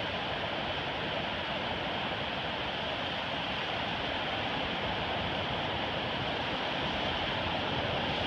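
Ocean surf: a steady, unbroken wash of small waves breaking and running up a sandy beach.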